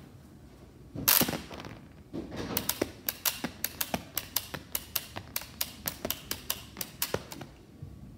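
Homemade LEGO rubber-band rifle firing on automatic: one loud clack about a second in, then a rapid, even run of mechanism clicks, about four or five a second, as it shoots rubber bands off one after another. The clicking stops about half a second before the end.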